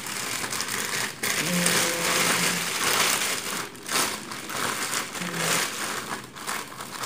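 Plastic bag crinkling and rustling unevenly as it is handled.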